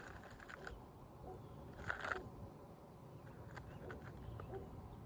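Faint scraping and clicking of an asphalt shingle being worked into place under the rows above it, with one louder scrape about two seconds in.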